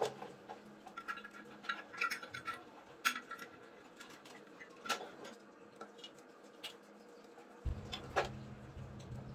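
Scattered light clicks and ticks of wires, a copper thermostat probe and plastic terminal parts being handled inside an electric water heater's wiring housing. A low hum comes in suddenly near the end.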